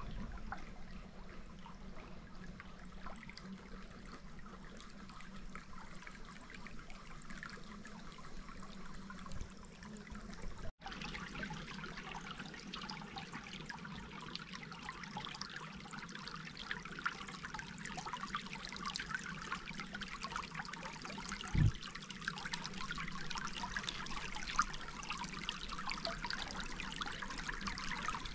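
Shallow stream trickling over rocks, a steady watery hiss. It cuts out for an instant about eleven seconds in, and there is a single low thump a little past twenty seconds.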